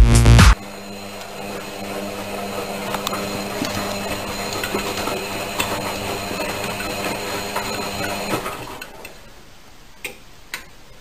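Front-loading washing machine running, a steady mechanical hum with light ticking from the turning drum, which drops away about two-thirds of the way through. Two short taps near the end. The last of an electronic dance music track cuts off at the very start.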